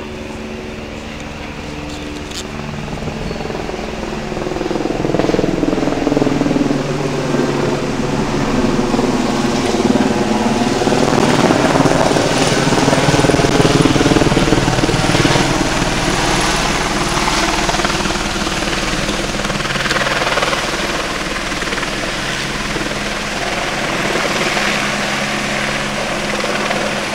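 Helicopter flying low overhead, its rotor and engine drone growing louder to a peak about halfway through and then easing off as it moves away.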